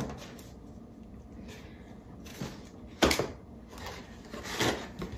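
Items being handled inside a cardboard shoebox: light knocks and rustles, with a louder scrape about three seconds in as a notebook is pulled out.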